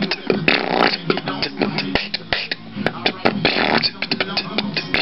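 Beatboxing: a quick run of percussive mouth clicks and pops mixed with short pitched vocal sounds.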